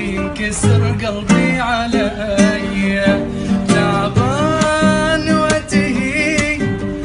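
An Arabic song: a male voice singing an ornamented melody with gliding, wavering notes over a plucked-string accompaniment.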